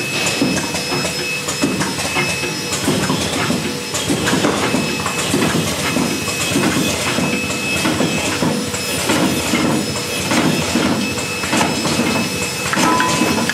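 RN1S coffee capsule filling machine running, a rhythmic mechanical clatter of about two beats a second over a steady hiss and a high steady tone.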